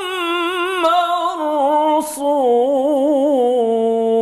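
Melismatic Quran recitation by a single voice in maqam Bayat (the 'jawab' upper section), drawing out one syllable with quick wavering ornamental turns. After a breath about two seconds in, the line descends and settles on a long held note.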